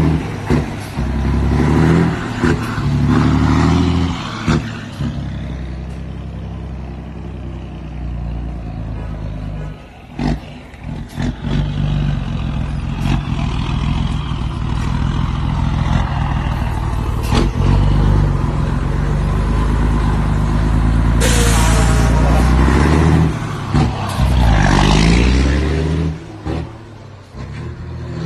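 Scania 112's straight-piped six-cylinder diesel running loud and deep, revving and pulling with the pitch rising and falling several times as it goes through the gears. A short sharp hiss of air cuts in about two-thirds of the way through.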